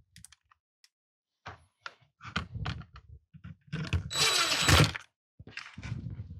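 Power drill driving a screw for about a second midway, with a steady whine, amid knocks and clicks of the drill and the jigsaw's parts being handled.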